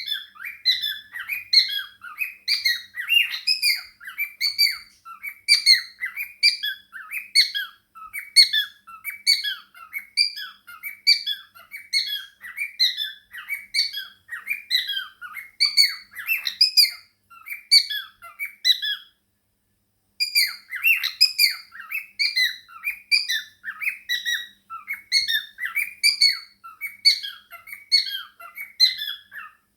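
Small pet parrots chattering: a fast, unbroken run of short chirps and squeaks, with a pause of about a second roughly two-thirds of the way through.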